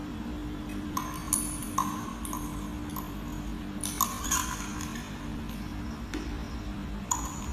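Light clinks and pings of a utensil against glassware, about eight short taps with brief ringing, most in the first half and one near the end, while a dry chemical (magnesium chloride) is scooped out for artificial seawater. A faint steady low hum lies underneath.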